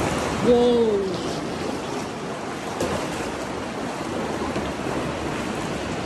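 Kayak paddling in a sea cave: a continuous wash of splashing and sloshing sea water as paddle blades dip and throw off water. A person gives a brief exclamation with a falling pitch about half a second in.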